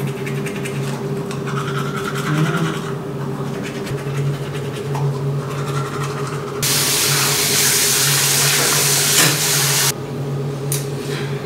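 Teeth being brushed with a toothbrush, then a water tap running into a sink for about three seconds past the middle, cutting off suddenly, over a steady hum.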